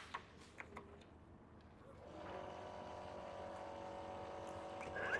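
Cordless pin nailer's motor humming steadily as it is held against the handrail, ready to fire a pin into a spindle, after a few light clicks near the start.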